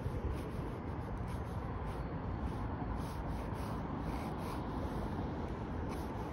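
Ink pen scratching on sketchbook paper in short repeated strokes, over a steady low outdoor rumble.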